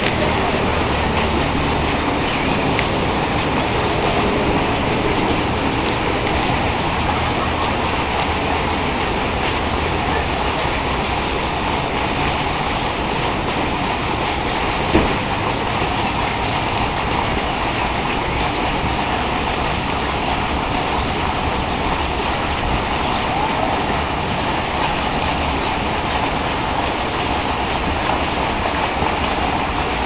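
Steady rushing and splashing of a lake fountain's water jet falling back onto the lake, with one brief knock about halfway through.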